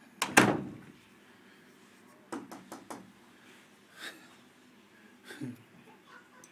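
A loud thump about a quarter of a second in, then a scatter of quieter knocks and clicks, like handling around a door in a small room.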